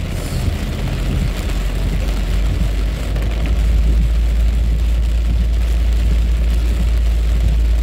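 Inside a car driving through heavy rain: a low rumble of engine and road dominates, growing louder about three and a half seconds in, over a steady hiss of rain and water on the windshield.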